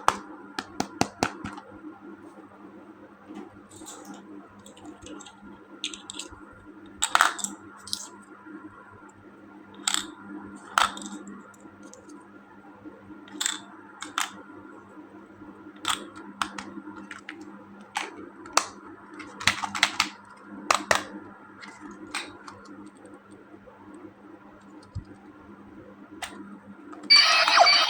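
Plastic toys and packaging handled by hand: scattered sharp clicks and taps, a few every couple of seconds, over a faint steady hum. Near the end a loud buzzy electronic sound starts abruptly.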